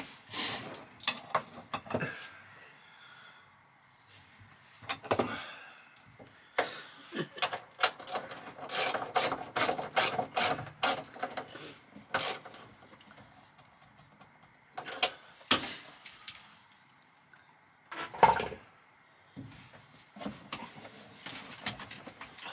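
Ratchet spanner clicking in short runs as it tightens cable lugs onto battery terminal bolts, with heavy cables rubbing and knocking. The quickest run of clicks comes about halfway through.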